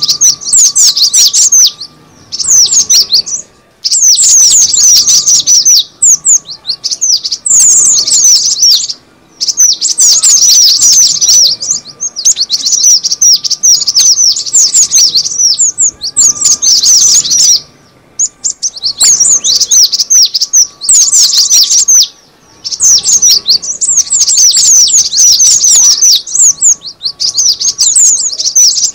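Cinereous tit (gelatik batu) calling in a recorded lure track: loud, rapid chattering runs of high, downward-sweeping notes, in bouts of one to three seconds with brief pauses between.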